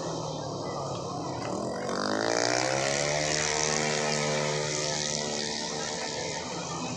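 Tuned 130 cc automatic scooter racing engine accelerating: its pitch climbs over about a second, holds high for a few seconds, then eases off, over a steadier engine hum.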